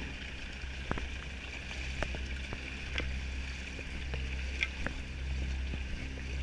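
Footsteps wading through shin-deep floodwater, the water sloshing around the legs, over a steady low engine hum. Scattered light knocks and clicks of gear come through about once a second.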